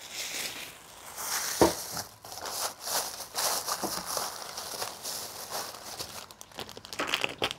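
Chopped garlic sizzling and crackling in hot lard in a wok, with one sharp click about a second and a half in.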